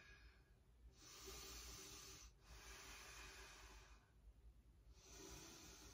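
Faint, slow, deep breathing: a long breath in and a long breath out starting about a second in, then another breath beginning near the end.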